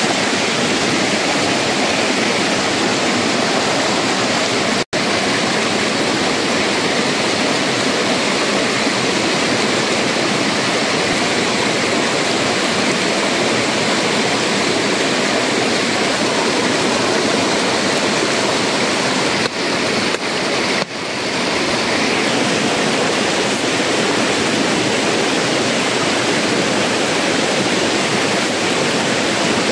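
Shallow rocky stream rushing steadily over small cascades. The sound briefly cuts out about five seconds in, and twice more around twenty seconds in.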